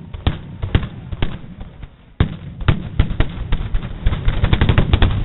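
Firecrackers going off in a rapid, irregular string of sharp cracks, coming thicker in the second half.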